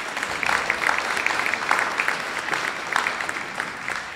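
Audience clapping, a dense patter of many hands, dying away near the end.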